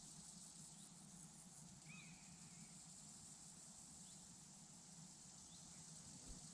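Faint meadow ambience: crickets trilling in a steady high drone, with short bird chirps about once a second and one longer bird call about two seconds in.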